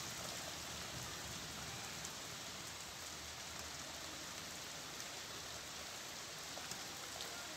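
Steady rain falling on a wet paved lane: an even hiss with a few scattered drop splashes.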